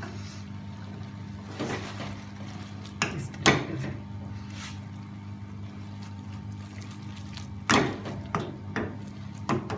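Rice being tossed by shaking a large metal pan on the stove, the grains sliding and swishing, with a series of knocks from the pan. The loudest knock comes about three and a half seconds in and a cluster comes near the end. A steady low hum runs underneath.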